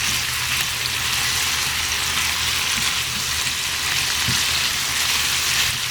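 Shrimp frying in melted butter in a skillet, giving a steady sizzle.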